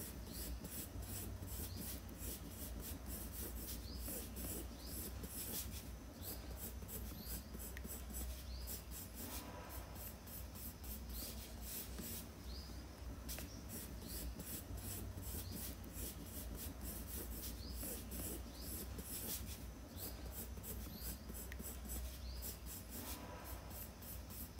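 Coloured pencil scratching across sketchbook paper in many short, quick strokes, over a steady low hum.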